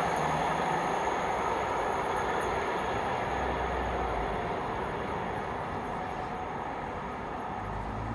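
Freight train wagons rolling past on the rails, a steady rumble that slowly fades, with light regular clicking from the wheels that dies away near the end.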